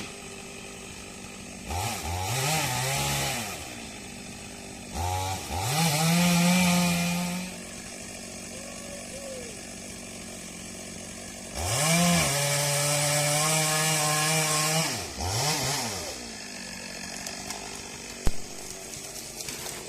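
Two-stroke chainsaw revved to full throttle three times, each burst rising in pitch, holding steady for two to four seconds, then dropping back to idle; the third burst is the longest.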